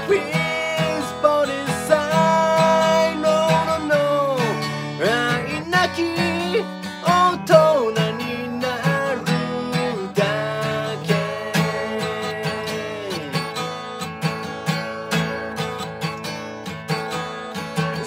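A man singing a pop song while strumming his own acoustic guitar.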